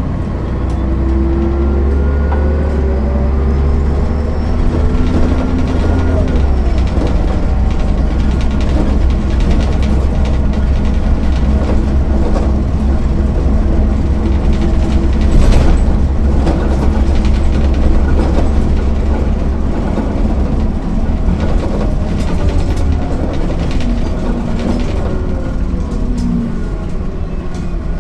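MAN NL 262 city bus driving, its diesel engine and ZF 5 HP 600 automatic gearbox giving a deep steady drone, with the engine pitch gliding as it changes speed in the first few seconds. A single sharp knock about halfway through.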